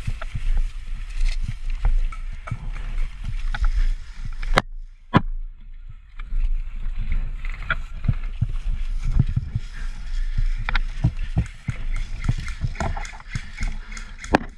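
Close rustling of grass and the knocking of rifle and gear against a body-worn camera as a player crawls and shifts through grass, over a low rumble. About four and a half seconds in, two sharp cracks come half a second apart.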